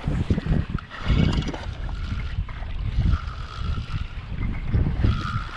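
Wind buffeting the microphone and sea water slapping the kayak's hull, in uneven gusts. About three seconds in and again near the end comes a short whirring, as the fishing reel is cranked to bring in a hooked fish.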